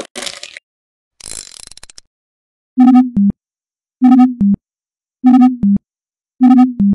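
Two short hissy noise bursts, then four loud electronic two-note beeps. Each beep is a buzzy tone that drops to a lower one, and they repeat about every 1.2 seconds.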